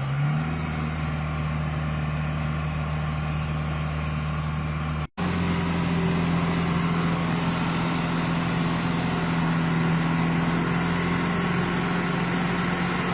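Vehicle engine running at a steady speed, cut by a brief dropout about five seconds in, after which it runs on at a slightly higher pitch.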